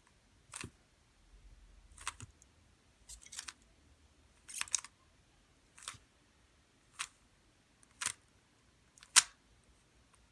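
Rubik's cube layers being turned one move at a time, each turn a sharp plastic click, about ten clicks roughly a second apart, the loudest near the end. This is the Sune OLL algorithm (R U R' U R U2 R') being performed slowly.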